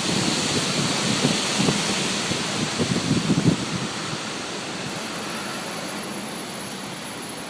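Strong storm wind rushing, with gusts buffeting the microphone in the first half, slowly easing toward the end.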